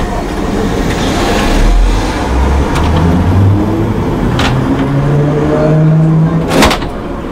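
A29 heritage tram's motors whining and rising in pitch as the tram picks up speed along the track, with a few clicks and one sharp clunk near the end.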